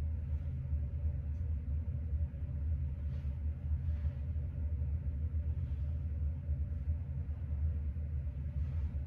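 Fan running: a steady low rumble with a faint even hum above it.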